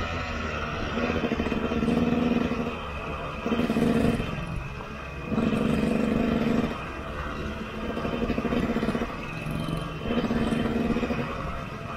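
KTM 125 EXC two-stroke single-cylinder enduro engine being ridden, opening up in about five throttle surges of a second or so each and easing off between them.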